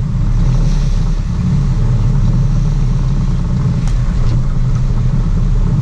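Sportfishing boat's engines running with a steady low rumble, with water churning and splashing at the stern.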